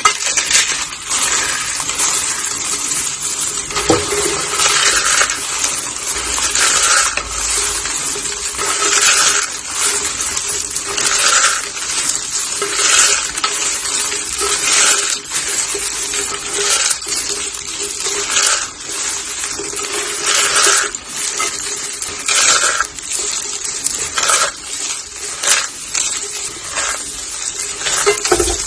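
Dry carved soap roses and soap curls being crushed by hand, a continuous dense crackle and crunch with a brighter crunch every second or two.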